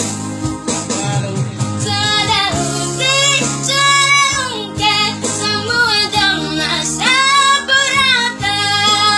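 A child singing a song in long held phrases with vibrato, over steady instrumental backing.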